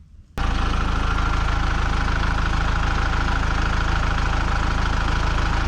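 Tractor engine running steadily, cutting in abruptly about half a second in.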